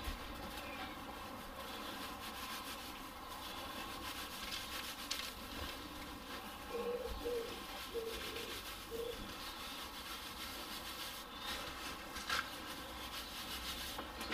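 Faint rustling of dry wood shavings being scooped up and dropped by hand onto a plastic sheet.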